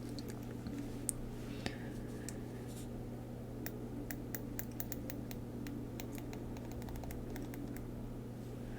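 Deco Rush roller tape being rolled out onto a paper planner page: a run of small irregular clicks, sparse at first and densest in the middle, over a low steady hum.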